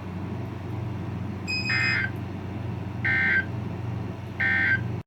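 Emergency Alert System end-of-message signal: three short bursts of buzzing SAME digital data tones, about a second and a half apart, marking the end of the flash flood warning broadcast. A steady low hum runs underneath.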